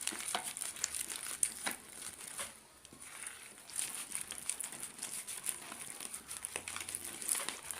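Slime being stirred and mixed, giving many small sticky clicks and crackles.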